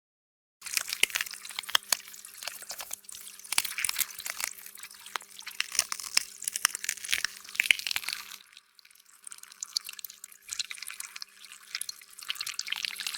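Water dripping and splashing in many quick small drops, with a steady low hum under it. It eases off briefly about two-thirds of the way through.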